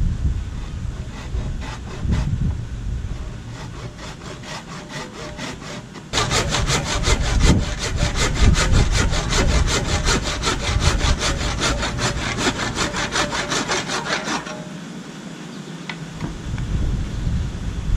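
Handsaw cutting through a wooden canoe yoke in repeated back-and-forth strokes, making the second cut to trim it to size. The strokes start faint, get louder and quicker about six seconds in, and ease off about fourteen seconds in.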